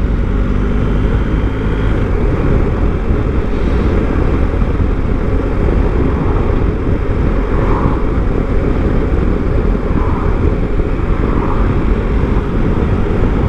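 Motorcycle on the move, heard on a handlebar-mounted action camera: a steady, loud rush of wind over the microphone with the engine running underneath.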